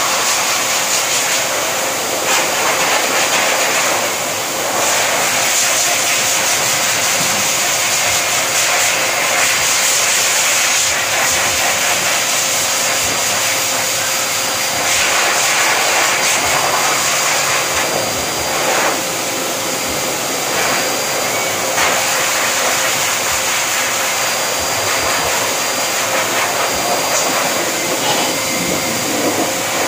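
Canister pet grooming blower dryer running steadily, air rushing out of its hose over a steady motor whine.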